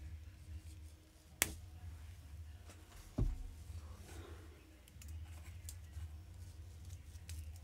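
Scissors snipping a packaging tie on a doll's hair, one sharp snip about a second and a half in, then a louder low thump and a few faint clicks of handling, over a steady low hum.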